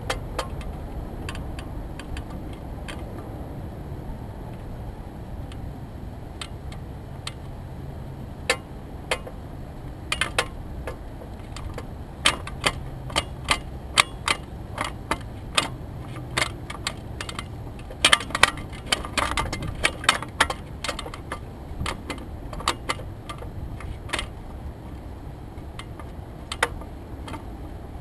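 Irregular light clicks and ticks, thickest in a flurry about two-thirds of the way through, over a steady low rumble.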